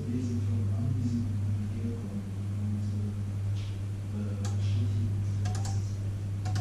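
Panasonic inverter microwave oven running with a steady low hum. A few small clicks and ticks come about four and a half to six and a half seconds in.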